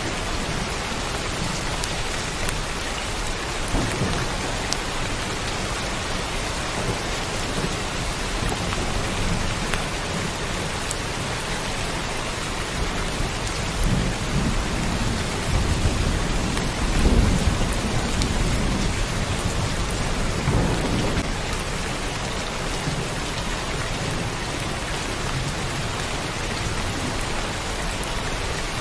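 Heavy, steady downpour of rain with low rumbles of thunder rolling underneath, swelling a few times and loudest about two-thirds of the way through.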